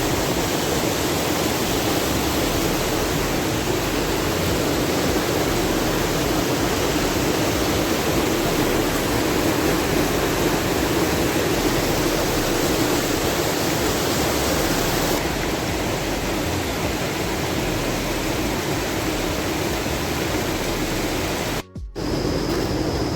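Steady rushing of river water, an even hiss and rumble, that cuts out for a moment near the end.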